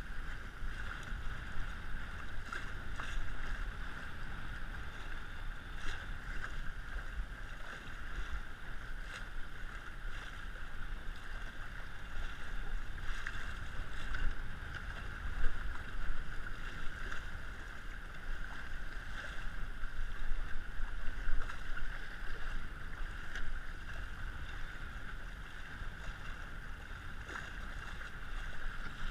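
Wind buffeting the microphone and water rushing along the hull of an RS100 sailing dinghy under way: a steady low rumble and hiss, louder in gusts, with occasional short knocks.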